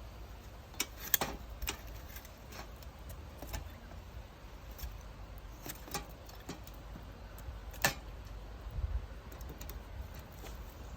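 Firewood burning in a Snow Peak Takibidai L fire pit, crackling with irregular sharp pops over a steady low rumble; the loudest pops come about a second in and near the end. The log is drawing strongly through a chimney effect.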